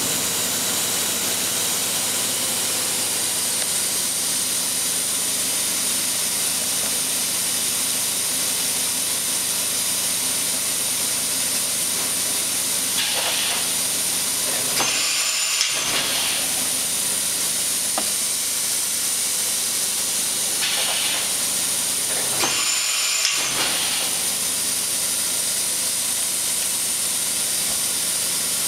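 Daewoo Mynx 540 CNC vertical machining center running under power: a steady hiss with a faint hum under it. Twice, several seconds apart, a louder rushing sound rises briefly and falls away.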